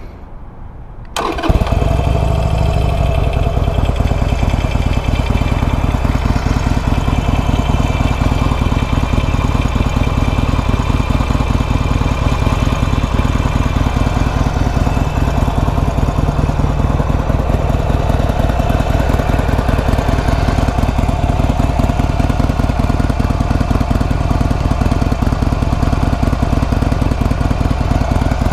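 A Harley-Davidson Sportster Iron 883's air-cooled V-twin is started about a second in, catching at once, then idles steadily through its stock exhaust, which sounds really quiet.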